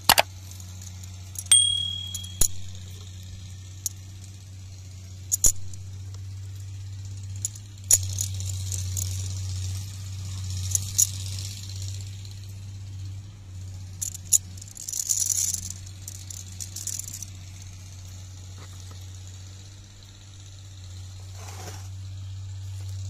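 Steel pistons with brass slippers and the retainer plate of a Cat 424B hydraulic piston pump clinking and rattling against each other as they are washed in a plastic tub of cleaning liquid. There are scattered sharp metal clinks, one ringing briefly, and stretches of rattling and sloshing, over a steady low hum.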